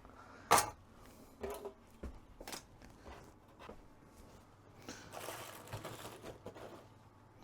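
Tools and small parts being picked up and set down while a workbench is cleared: scattered clicks and knocks, a sharp one about half a second in, and a stretch of rustling near the end.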